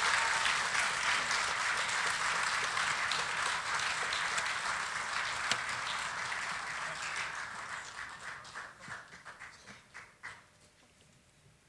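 Audience applauding, thinning to a few scattered claps and dying away about ten seconds in.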